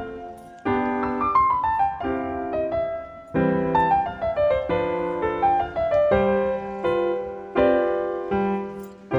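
Background piano music: chords with quick descending runs, no machine sound standing out.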